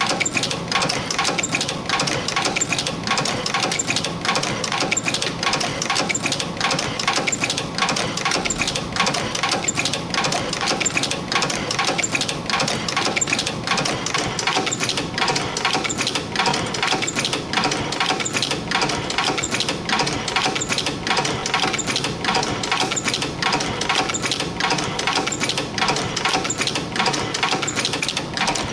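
CNC extension spring making machine running, coiling 0.5 mm wire into 3 mm springs and bending German-style hooks: a steady, fast mechanical clatter of closely spaced metallic clicks and ticks.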